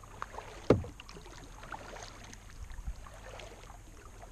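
Kayak paddle strokes on calm water: soft splashes and drips from the paddle blades, with one sharp knock a little under a second in.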